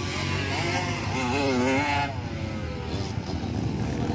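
Dirt bike engines revving, their pitch rising and falling with the throttle. Louder over the first two seconds, then easing off.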